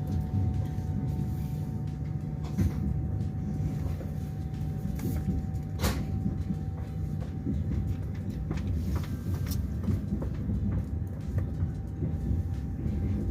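Passenger train coach running on the track, heard from inside: a steady low rumble of the wheels with a thin steady hum above it and a few sharp clicks and knocks, the loudest about six seconds in.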